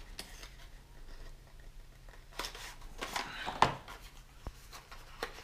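Hands handling small plastic drone charger parts on a table: soft scattered rustling and scraping, with one sharp click about three and a half seconds in.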